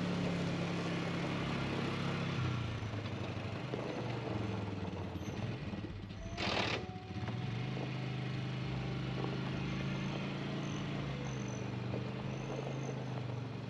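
A vehicle engine running while driving, its pitch shifting about two and a half seconds in. There is a brief hiss about six and a half seconds in.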